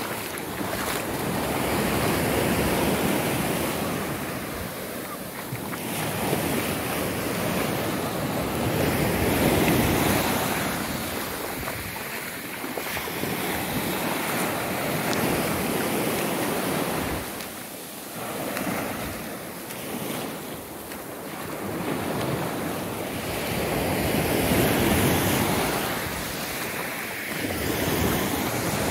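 Small sea waves breaking and washing up a sand-and-shingle beach, the surf swelling and falling back every few seconds.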